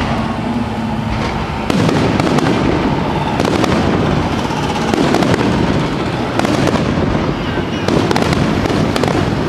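Aerial fireworks shells bursting in a dense, continuous barrage of bangs and crackle, getting louder a little under two seconds in.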